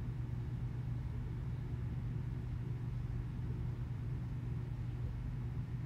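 2006 Nissan Titan's 5.6-litre V8 idling steadily with a low, even hum, running after its starter has been replaced.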